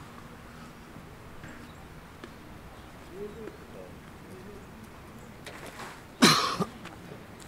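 A folded camping ground mat laid out and dropped flat onto dry forest ground: some handling rustle, then about six seconds in a sudden loud flat slap with a short second hit.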